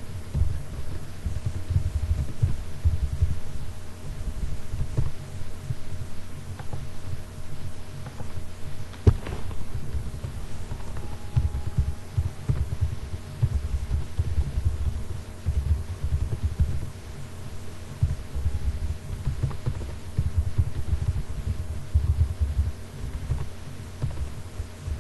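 Uneven, pulsing low rumble with a steady electrical hum under it. A few faint clicks, one sharper about nine seconds in.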